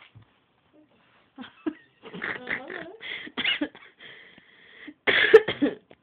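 A person's voice making short vocal bursts without clear words, with a high held squeal about four seconds in and the loudest burst near the end.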